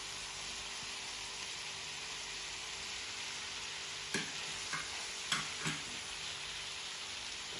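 Ground beef, carrots and green bell pepper sizzling steadily in a nonstick frying pan. From about four seconds in, a few short knocks and scrapes come from a silicone spatula stirring the pan.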